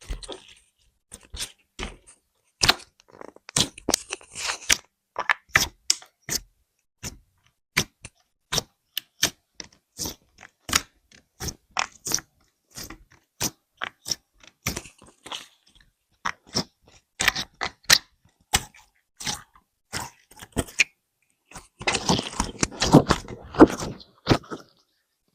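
Small slime jars being handled and set down on a wooden surface: a string of sharp, irregular taps and clicks, one to three a second, with a denser flurry of clicks and handling noise near the end.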